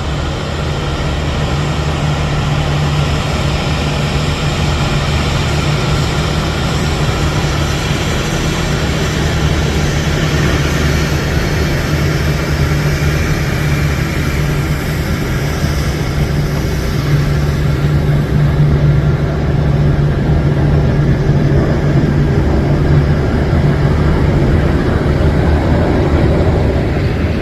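Jet airliner engines running with a steady rush and a low hum, growing slowly louder.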